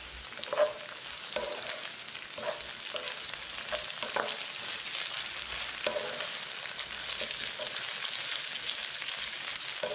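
Onions and fresh curry leaves sizzling in hot oil in a nonstick pan while a wooden spatula stirs them, with a scrape or toss about every second over the steady hiss.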